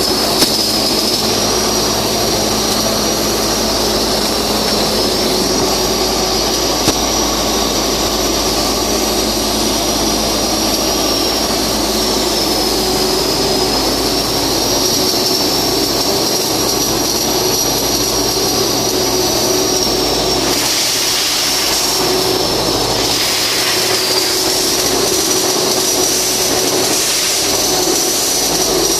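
Flux-cored arc welding: a steady, loud hiss and crackle of the welding arc, with a high whine that wavers slightly in pitch over it.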